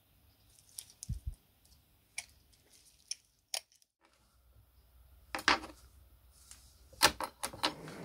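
Scattered metallic clicks and clinks of steel door-closer parts being handled, with a brief dead gap just before the middle and a louder cluster of clinks in the second half.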